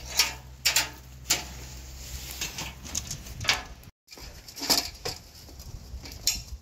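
Several sharp knocks and clunks from a wooden extension ladder being handled and set against a camper's corrugated metal siding.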